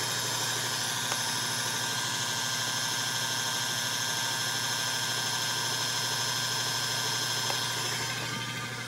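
Wind generator spun on a test bench by a drive motor at about 765 RPM: a steady whine made of several high tones over a low hum. It eases off slightly near the end.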